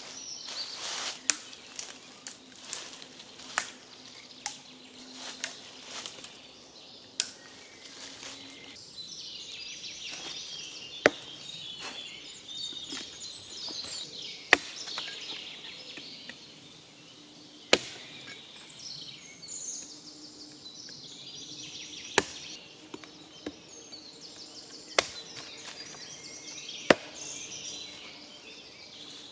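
Hatchet chopping a branch laid across a log: single sharp chops every few seconds, with birds singing. In the first several seconds, a quicker, irregular run of smaller knocks and snaps.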